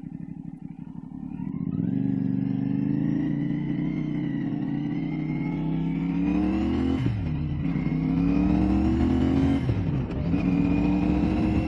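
CFMOTO 450SS's 450 cc parallel-twin engine accelerating under a riding motorcycle: quiet at first, then rising in pitch as it pulls, with the revs dropping at two upshifts about seven and ten seconds in.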